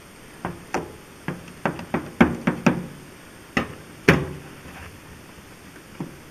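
A series of sharp knocks and thuds, about a dozen in four seconds, the loudest about two and four seconds in, as a knife cuts through a ballistic gelatin block and the cut block is shifted and set down on a white appliance top.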